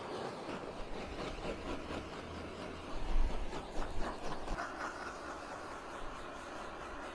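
Handheld butane torch flame hissing steadily as it singes raw chicken wings, with a louder low rumble about three seconds in.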